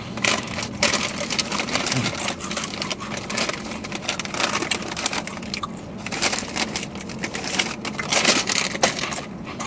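Two people chewing Takis Fuego rolled tortilla chips with mouths close to the microphone: a dense, irregular run of loud crunches.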